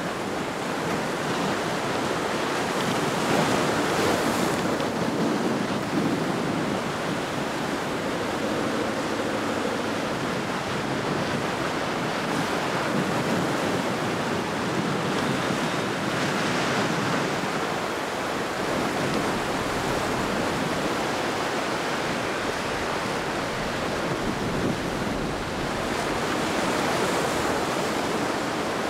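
Ocean surf rushing and breaking in rough seas at an inlet, a steady roar of waves that swells louder a few times, with wind buffeting the microphone.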